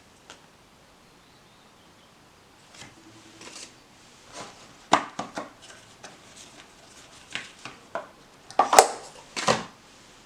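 A series of light clicks, taps and rustles of small objects being handled, sparse at first and busier toward the end, where the loudest clicks fall.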